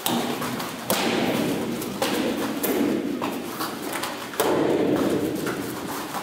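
Thuds of bare feet stamping on training mats during taekwondo poomsae, a few sharp ones about a second apart, then another past the middle.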